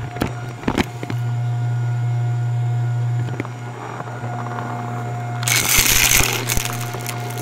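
Shark Navigator vacuum cleaner running with a steady hum, sucking up debris spread on the floor. There are a few clicks near the start, then a loud burst of crunching about five and a half seconds in.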